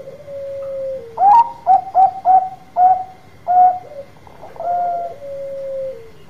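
Bangkok perkutut (zebra dove) singing its loud cooing song: a drawn-out falling coo, then a run of about six short, loud clipped notes, then a second long coo that falls away near the end.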